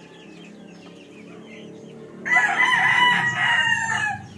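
A gamefowl rooster crows once, loudly, starting about two seconds in and lasting about two seconds.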